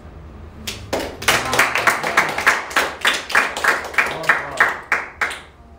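A small group of people clapping their hands, about three or four claps a second, starting about a second in and stopping near the end.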